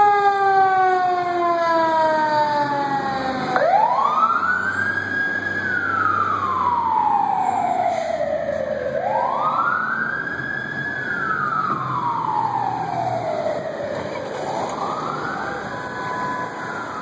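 Fire engine siren wailing as the engine pulls out. After a falling tone at the start, it climbs quickly and sinks slowly three times, about every five seconds, over the low rumble of the engine.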